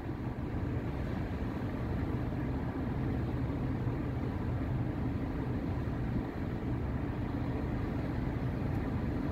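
Steady low hum of a ship's machinery, even throughout with no changes.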